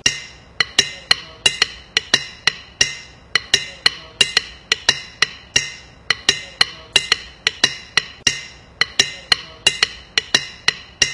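Sharp, ringing percussive clicks in an uneven patter, about three a second.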